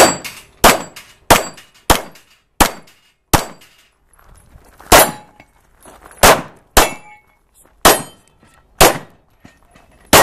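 Pistol fired about eleven times in an uneven string during a timed course of fire, with steel targets ringing after the hits.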